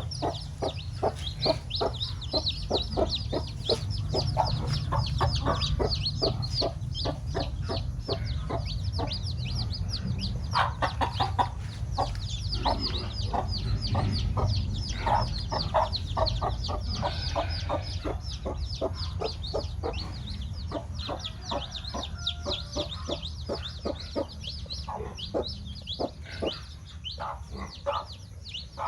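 A mother hen clucking in quick repeated notes while newly hatched chicks peep continuously in short, high, falling chirps, over a low steady rumble.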